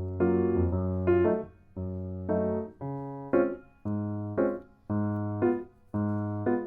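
Background music: a light keyboard tune, chords struck about once a second over a held bass note.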